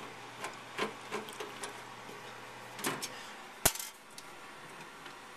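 Light scattered clicks and knocks of a screwdriver working at a computer case's side panel, with one sharp click about two-thirds of the way through.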